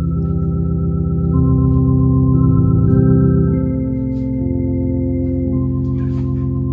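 Two-manual home console organ playing slow sustained chords, each held for a second or more before changing, with a wavering tremolo in the tone.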